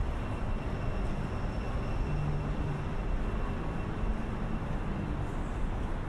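Steady low rumble of city traffic, with a faint thin high whine held over it.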